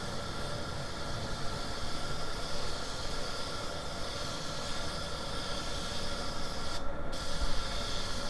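Suction-feed air spray gun hissing steadily as it sprays paint onto a car bumper, over a steady background hum. The hiss breaks off for a moment near the end, then resumes.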